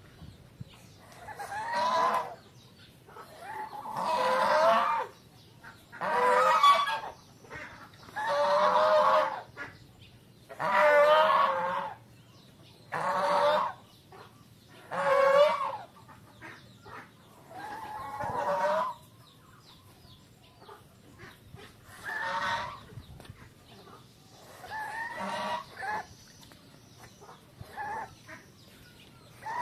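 White domestic geese calling: a run of about eleven drawn-out honks, each roughly a second long, coming about every two seconds and growing weaker in the second half.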